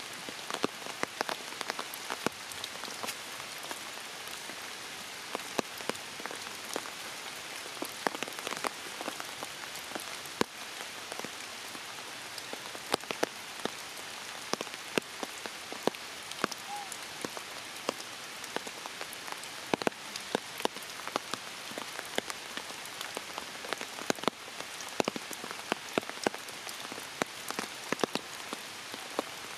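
Steady rain falling, with many sharp individual drops striking close by at irregular moments.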